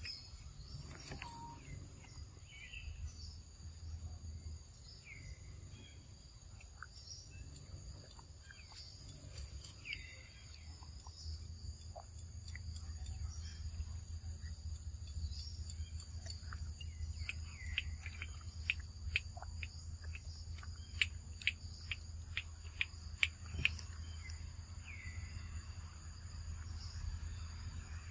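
Outdoor ambience under trees: a steady high insect drone with scattered short bird chirps over a low hum. In the second half a quick run of sharp clicks stands out as the loudest sound.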